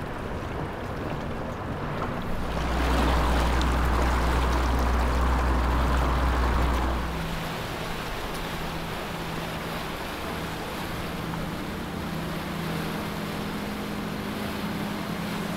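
Quad Mercury 450R outboards on an MTI-V powerboat running on open water. A loud low rumble with rushing water and wind from about two to seven seconds in, then a steadier engine drone over the water noise.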